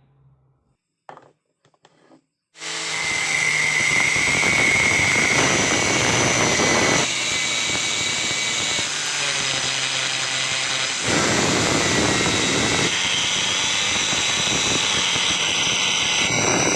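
A few small clicks, then an angle grinder mounted in a wooden stand switches on about two and a half seconds in and runs at full speed with a high whine. Its sound changes twice as it runs, dropping slightly and then rising again.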